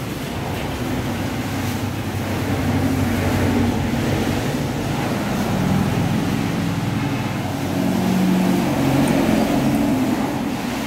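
Steady low rumble of motor vehicle engines, growing louder about three seconds in and again around eight seconds.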